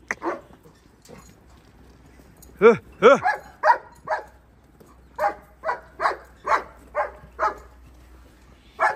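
Dog barking repeatedly: a loud pair of barks about two and a half seconds in, then a steady run of barks about two a second.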